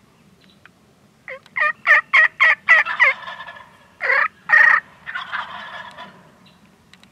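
Wild turkey gobblers gobbling: a rapid rattling run of notes about a second in, two louder calls around four seconds in, then a fainter gobble.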